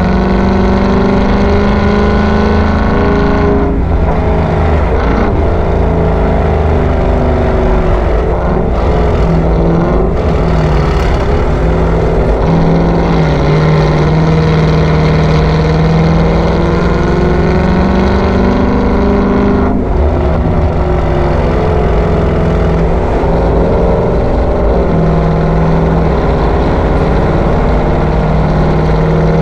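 Ford Mustang 5.0 GT's V8 running through a Borla ATAK cat-back exhaust while driving, its pitch rising and falling with throttle, with brief breaks about three and a half seconds in and again near twenty seconds.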